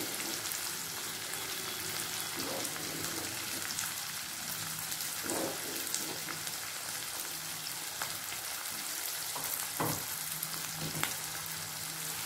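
Chopped capsicum and green beans sizzling in hot butter and oil in a non-stick wok: a steady frying hiss with a few faint soft knocks.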